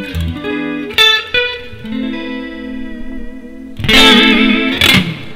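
Yamaha Pacifica 212 electric guitar played through a Yamaha THR10 amp on a clean setting with a little chorus: single notes ringing out, then a louder strummed chord about four seconds in.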